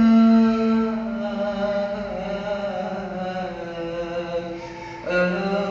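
A solo voice singing an Arabic nasheed, drawing out a long ornamented note that slowly bends in pitch, then starting a new phrase about five seconds in.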